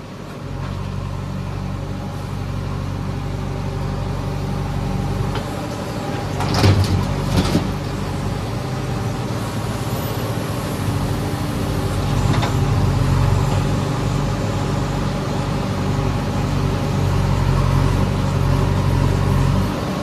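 JCB 3DX backhoe loader's diesel engine running under load as the backhoe arm digs and swings, heard from the operator's seat. The engine picks up about half a second in and builds again in the second half. A few sharp knocks come around seven seconds in, and one more a little past the middle.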